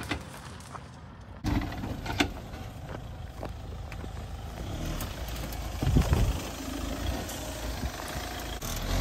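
Mahindra Thar's 2.0-litre turbo-petrol four-cylinder engine running as the SUV crawls over rough dirt, with a low rumble that swells briefly about six seconds in.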